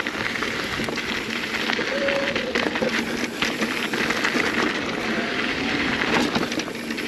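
Mountain bike rolling down a dirt singletrack: tyres crunching over dirt and gravel, with clicks and rattles from the bike over bumps. A brief wavering squeal about two seconds in and a fainter one later come from the front disc brake, whose pads are hanging up on the rotor.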